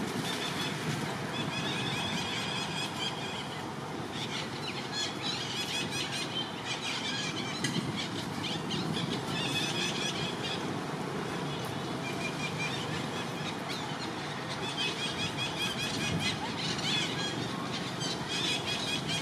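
Short, high-pitched squeaky calls that come in clusters every few seconds, over a steady outdoor background hiss.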